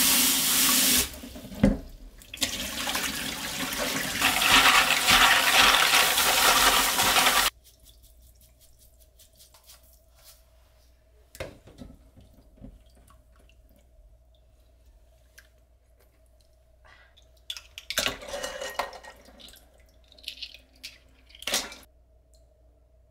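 Kitchen tap water running into a sink, dipping briefly with a click about two seconds in, then shut off suddenly about seven seconds in. Afterwards a faint steady hum remains, with a few light clicks and knocks.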